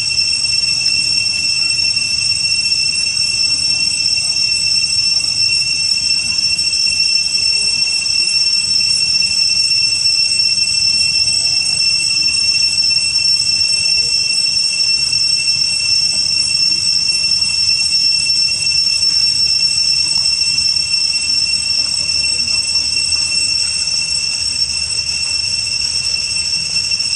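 Cicadas droning in the trees: a loud, steady, high-pitched whine that holds one pitch without a break.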